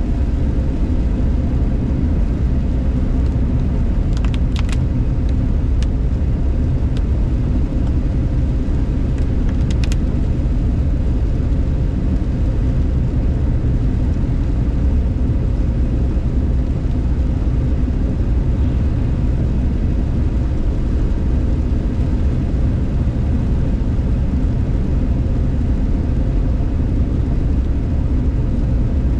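Steady low rumble of a car driving on a wet road, heard from inside the cabin: engine and tyre noise. A few brief clicks come about four and ten seconds in.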